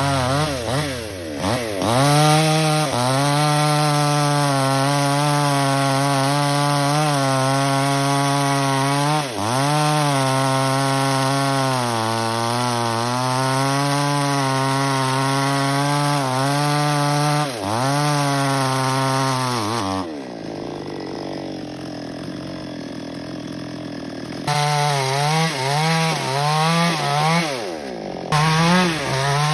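Small chainsaw cutting teak branches: the engine runs at high revs, its pitch sagging and recovering a few times under load. About two-thirds of the way through it drops to a low idle for a few seconds, then revs up again.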